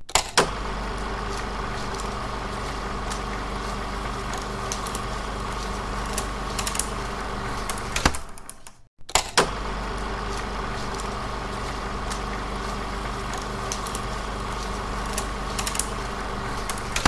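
16mm film projector running: a steady mechanical hum with scattered clicks. It cuts out for a moment about halfway through, then starts again with a couple of sharp clicks.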